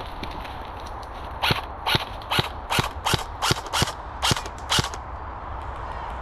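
Airsoft gun firing about nine single shots in quick succession, two to three a second, each a sharp crack.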